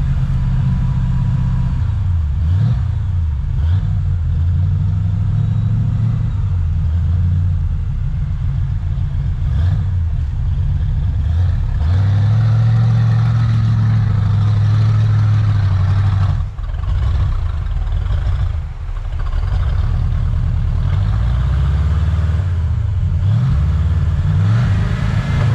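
Off-road vehicle engine running under load, its pitch falling and rising several times as it is revved, with a steadier stretch in the middle.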